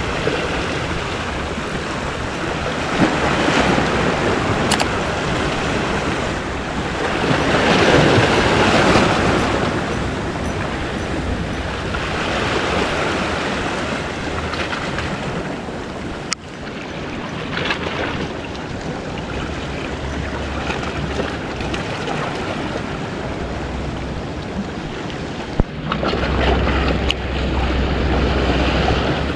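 Sea waves washing against the rocks of a breakwater, with wind buffeting the microphone; the surf swells louder several times. Two brief clicks stand out, one about halfway through and one near the end.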